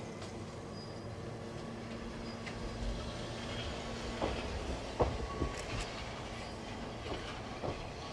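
Ex-Tokyu 5000 series electric railcar moving off from the platform: a steady hum, then from about four seconds in a run of clicks and knocks from its wheels over the rail joints, the loudest about five seconds in.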